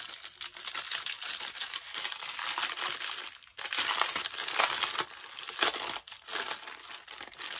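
Clear plastic packaging of a diamond painting drill pack crinkling as it is handled and pulled open by hand. There is a short break about three and a half seconds in.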